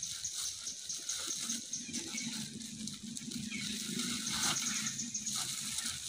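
Outdoor ambience: a steady high-pitched drone with scattered light clicks, and a low hum that swells from about two seconds in until about five seconds in.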